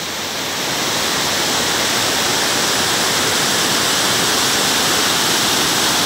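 Water rushing down a rocky river cascade: a steady, dense rush of falling water that grows a little louder over the first second, then holds even.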